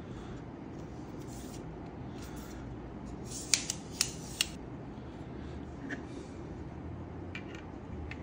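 Packaging and accessories being handled: a quick run of four sharp clicks about three and a half seconds in, then a few fainter clicks. A steady low hum sits underneath.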